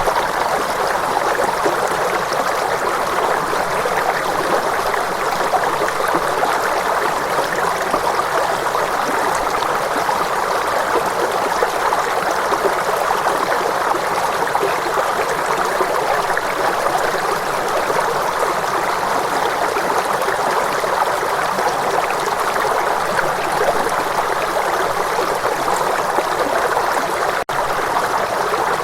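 Steady running water of a stream, an even rushing flow, with a split-second gap near the end.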